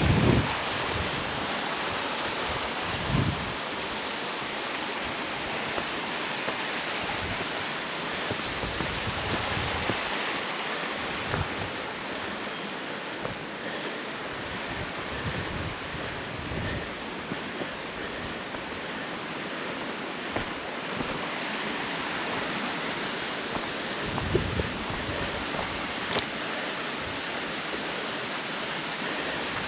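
Steady rush of water from a river and waterfall, an even hiss with no breaks. A few brief low bumps stand out, the loudest near the start, around three seconds in, and about twenty-four seconds in.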